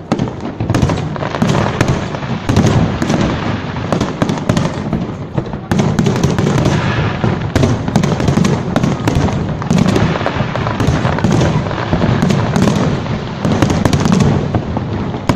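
Fireworks display going off in a dense, continuous barrage: rapid overlapping bangs and crackles with no pause between them.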